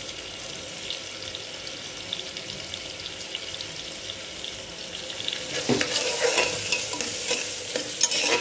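Chopped onion, tomato and green chillies sizzling in hot oil in a pot, a steady hiss with small crackles. About five and a half seconds in, a spoon starts stirring and scraping the pot, louder, with a few knocks against the metal.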